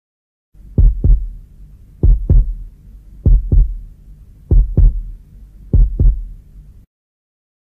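Heartbeat sound effect: five slow lub-dub double beats, about a second and a quarter apart, over a low hum, cutting off suddenly near the end.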